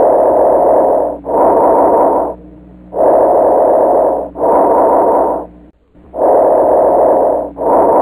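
Bronchovesicular breath sounds as heard through a stethoscope: a soft, rustling, tubular noise on each breath in and each breath out. The two halves are equal in length with no pause between them (I:E 1:1), three breaths roughly three seconds apart.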